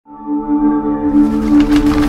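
Intro music: a sustained ringing chord, joined by a swelling whoosh from about a second in.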